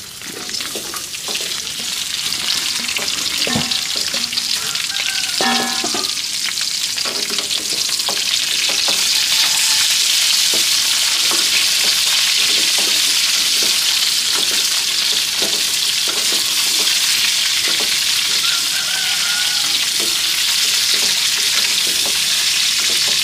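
Food sizzling in a hot pan as it is stir-fried. The sizzle builds over the first several seconds and then holds steady, with occasional light clicks.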